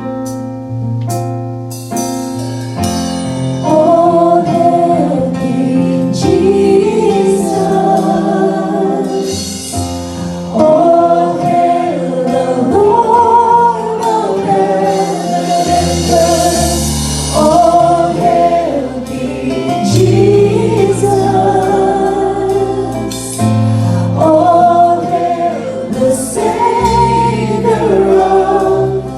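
Christian worship song sung by a group of voices over band accompaniment.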